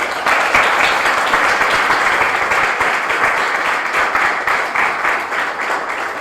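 Audience applauding: many hands clapping, starting all at once and slowly thinning out near the end.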